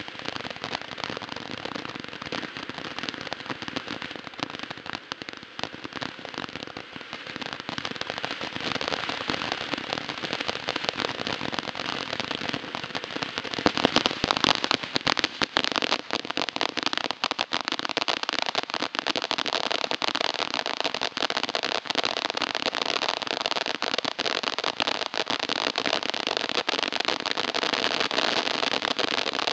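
Pyro Planet 'Chemistry 101' 200-gram fountain firework spraying: a steady hiss packed with dense crackling. It grows louder about halfway through and stays at that level.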